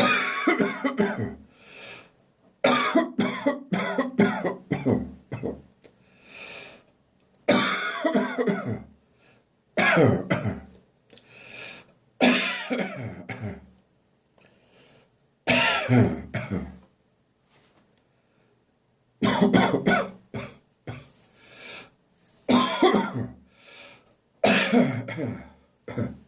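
A person's dry cough, with no phlegm or gagging, coming in about nine bouts of several sharp coughs separated by short quiet pauses: the lingering cough of bronchitis that is clearing up.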